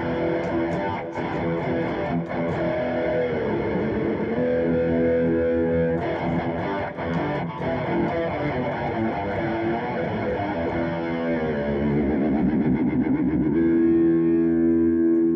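Electric guitar played through a distorted amplifier, notes and chords with wavering bends, ending on a loud held chord that rings on near the end.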